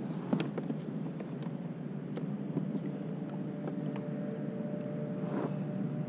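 A steady low drone, like a small motor running, with a sharp knock about half a second in and a few lighter ticks. A short run of faint high chirps sounds about two seconds in.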